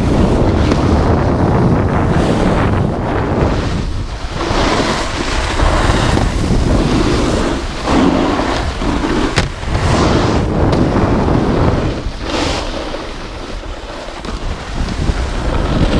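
Wind rushing over an action camera's microphone at riding speed, with the scrape of snowboard edges on groomed snow rising and falling as the riders carve. A single sharp knock about nine seconds in.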